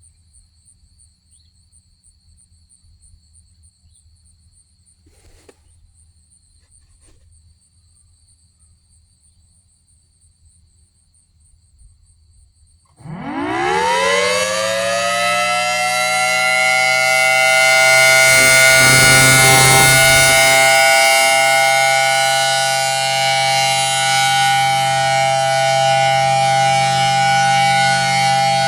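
Thunderbolt 1000T outdoor warning siren winding up about 13 seconds in, its pitch rising fast and then holding as a loud, steady chord of several tones, sounded for a scheduled monthly test. Before it starts there are only faint steady high-pitched tones.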